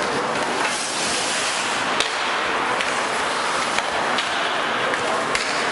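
Live ice hockey game sound in a rink: a steady wash of crowd noise and skates scraping the ice, broken by a few sharp clacks of sticks and puck, about two seconds in, twice near four seconds and once after five seconds.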